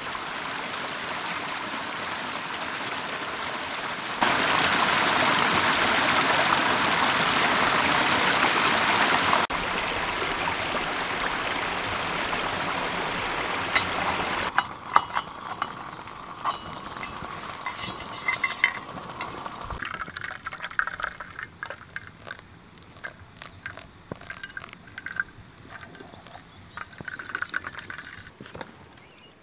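Rushing water of a small hillside burn, a steady rush that gets louder about four seconds in and drops back after about nine seconds. After about fourteen seconds it gives way to quieter trickling and dripping with small clicks, ending in water being poured through a mesh coffee filter into a pot.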